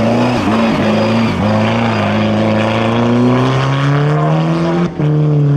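Rally car engine pulling hard at high revs. The pitch drops briefly a few times in the first second and a half as the driver lifts or changes gear, then climbs steadily under acceleration. About five seconds in it breaks off abruptly and another engine note takes over at a different pitch.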